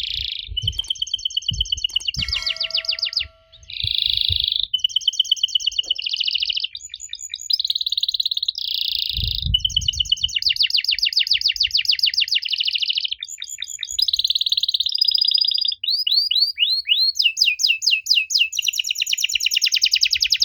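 Domestic canary singing a long, unbroken song of high, rapid trills and rolls, switching to a new phrase every second or two, with a run of quick downward sweeps about sixteen seconds in.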